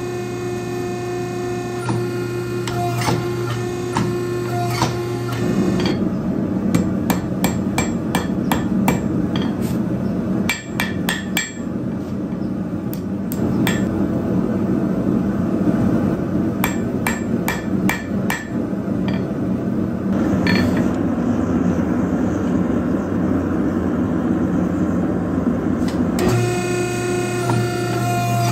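Hand hammer striking a hot, twisted railroad spike on a steel anvil: several clusters of quick, ringing blows. A steady hum runs before the strikes begin and again near the end.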